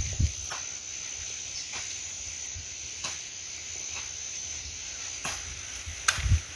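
Field insects keeping up one steady high-pitched shrill. Scattered faint clicks and scrapes run through it, with a low thump at the start and another near the end.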